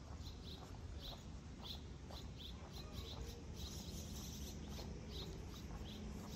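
Footsteps of someone walking at an even pace, about two steps a second, over a low steady outdoor background hum.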